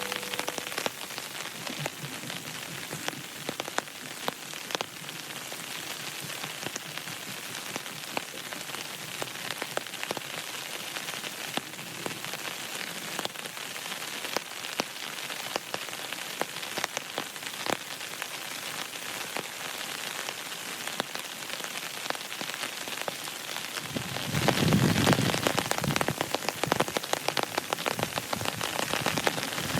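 Steady rain, with many separate drops striking close by. About 24 seconds in it swells louder for a few seconds, with a low rumble underneath.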